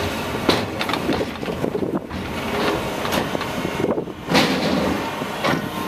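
Diesel engine of a track-work excavator with a grapple running steadily, with a series of sharp knocks over it; the loudest knock comes about two thirds of the way through.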